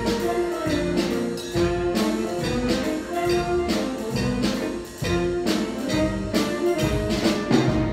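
Jazz stage band playing: saxophones and brass holding chords over electric guitar, bass and keyboard, with a drum kit keeping a steady beat.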